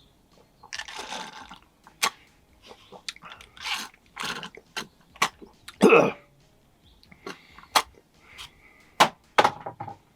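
A person drinking juice: irregular sips, swallows and mouth sounds, with a louder gulp about six seconds in and scattered sharp clicks of handling in between.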